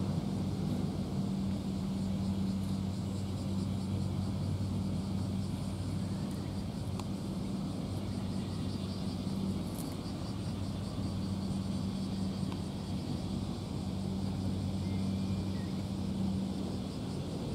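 A steady low mechanical drone with a constant hum, easing slightly in the middle and coming back stronger later.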